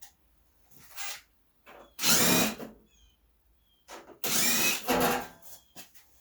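Impact wrench run in several short bursts, the longest and loudest about two and four and a half seconds in, working to break loose stubborn bolts on a snowblower's belly pan.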